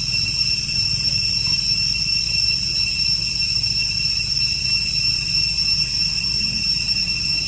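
A steady high-pitched whine with overtones over a constant low rumble, without break or change.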